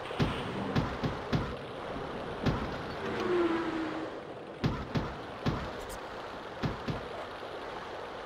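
Sea surf surging and washing over rocks as a steady rushing noise, with about a dozen sharp knocks scattered irregularly through it.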